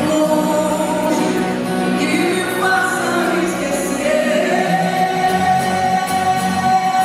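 Live band playing a song with singing; from about four seconds in, a long note is held.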